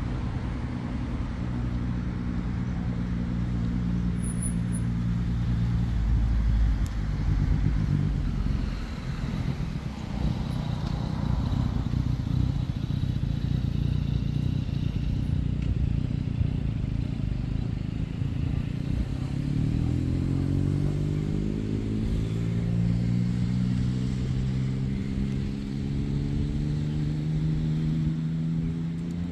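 Motor vehicle engine running steadily for the first several seconds and fading, then about two-thirds through another engine comes in, its pitch rising as it speeds up, then holding steady; an even low rumble runs underneath.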